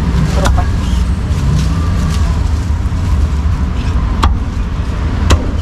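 A few sharp cleaver chops on a wooden chopping block, spaced out, with the last two about a second apart near the end. Under them runs a steady low rumble of street traffic.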